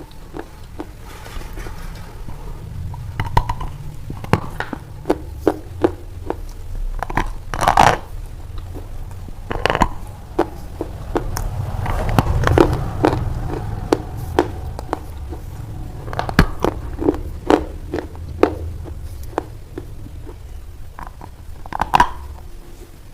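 A knife cutting a large bar of white soap: irregular crisp crunches and clicks as the blade bites and pieces break off, with scraping in between. The loudest crunches come about eight, ten, twelve and twenty-two seconds in.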